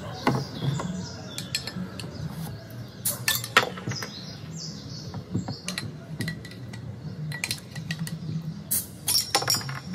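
Glass bottles and drinking glasses clinking and knocking on a table as drinks are served, in scattered sharp taps that are loudest about three seconds in and again near the end, over low steady background noise.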